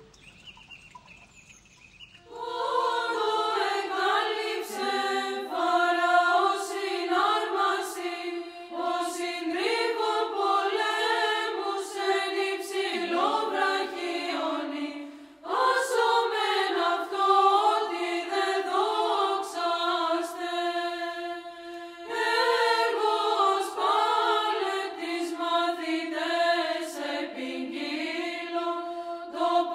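A choir chanting, a slow vocal melody over a steady held drone note. It starts about two seconds in after a short quiet stretch and breaks off briefly about halfway.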